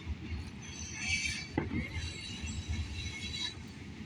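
Rustling handling noises over a low rumble, with a sharp click about one and a half seconds in.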